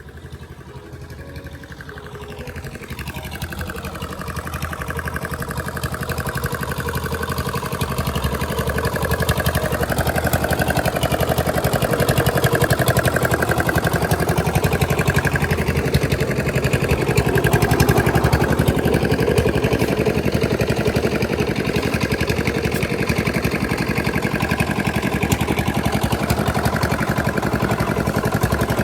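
An engine running steadily with a fast, even beat. It grows louder over the first ten seconds or so, then holds steady.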